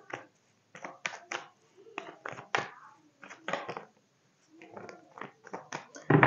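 Tarot cards being shuffled by hand: a string of short, irregular card riffles and taps, with a louder slap near the end.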